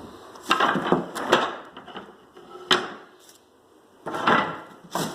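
Loose hardwood flooring boards knocking and clacking as they are handled and laid down on the subfloor, in a handful of sharp wooden knocks: a cluster early, one near the middle and a few near the end.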